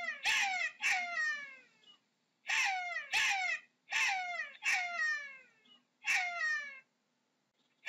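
Jackal giving repeated high yelping cries, each sliding down in pitch, in quick runs of two or three with short pauses between.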